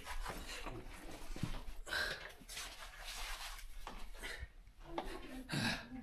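Hard breathing, with clothing and a backpack scraping and rubbing against rock, as a person squeezes bent over through a narrow cave passage. The breaths come in uneven hissy surges.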